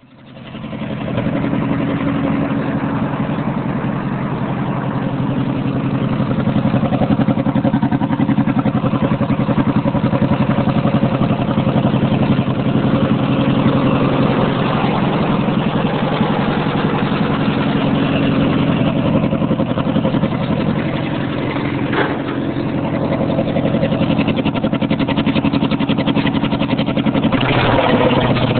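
Riding lawn mower engine running steadily through dual straight pipes, with no mufflers. There is a single sharp click about three quarters of the way through.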